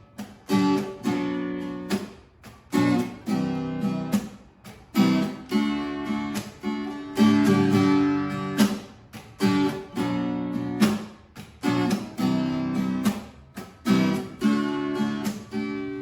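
Acoustic guitar strumming chords in a steady rhythm, the instrumental introduction to a singer-songwriter song before the vocal comes in.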